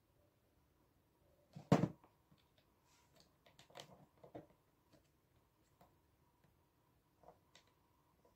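Small plastic parts of a wireless speaker being handled while it is taken apart: one loud knock about two seconds in, then scattered light clicks and taps.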